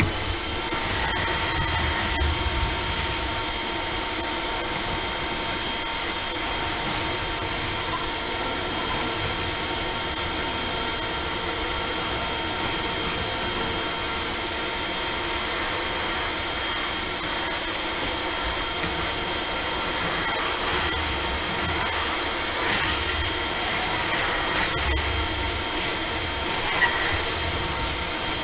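Small Porter-Cable wet/dry shop vac running steadily with a constant motor whine, sucking dirt and debris off a boat's bare deck through its hose. A few faint clicks of debris come through in the second half.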